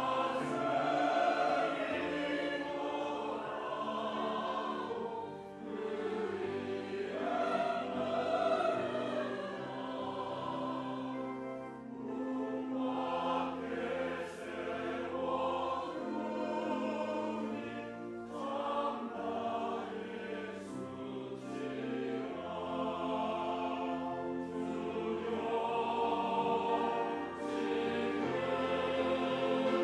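Mixed church choir of men and women singing a hymn in Korean.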